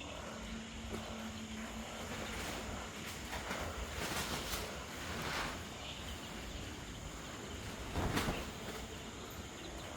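Wind blowing across the microphone, a steady low rumble that swells in gusts about four seconds in and again near eight seconds. A faint steady hum runs for the first two seconds.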